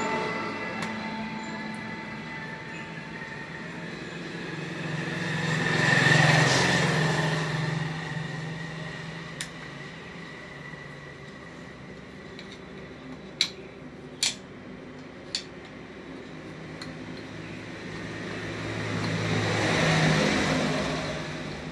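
Two vehicles passing by, each rising and fading away, one about six seconds in and one near the end. In between, a few sharp metallic clicks from a screwdriver working the float-bowl screws of a motorcycle carburetor.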